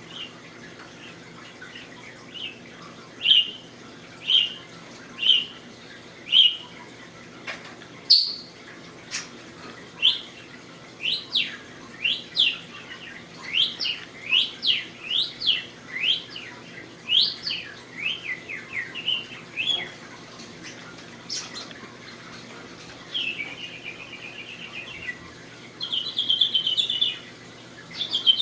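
English budgie vocalising: a few short chirps about a second apart, then a fast string of rising and falling whistles, then longer buzzy chattering near the end.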